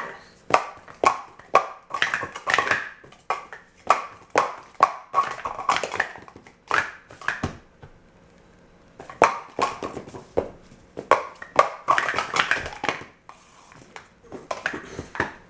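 Blue plastic sport-stacking cups clattering as they are rapidly stacked up and down by hand on a stacking mat: quick runs of sharp plastic clacks, with a short lull about halfway through before the clacking resumes.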